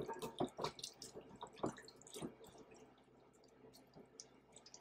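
Raw turkey wings squelching and slapping as a gloved hand tosses them in a glass bowl, working in the seasoning and butter coating: faint, irregular wet smacks, thinning out after about two and a half seconds.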